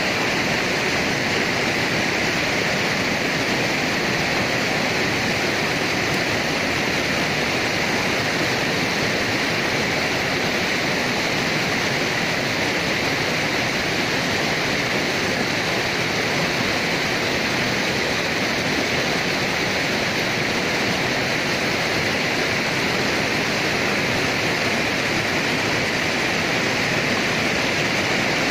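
Mountain river tumbling over boulders in small cascades: a steady, unbroken rush of water.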